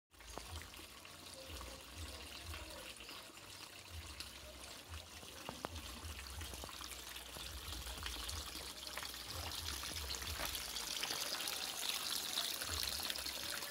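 Small stream of water trickling out of a hole in an eroded earth bank and running over the ground, getting a little louder near the end, over a low rumble. It is water leaking from a concrete drainage pipe and washing the soil away.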